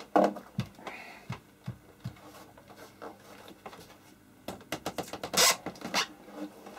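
Handling noise from an oscilloscope's case: scattered clicks and knocks of hard plastic and metal as hands grip and pull at the rear panel and feet, with a louder scraping rustle about five and a half seconds in.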